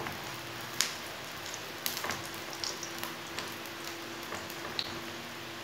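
Oil sizzling steadily in a hot frying pan under a frying egg-and-vegetable paratha dough, with scattered small spitting pops.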